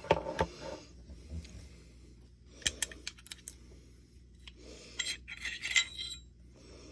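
Metal clicks and clinks of a Springfield XD Elite 10mm pistol being field-stripped by hand: the slide taken off the frame, the recoil spring assembly lifted out of the slide and the barrel worked loose. Scattered sharp clicks, with a denser run of clinks near the end.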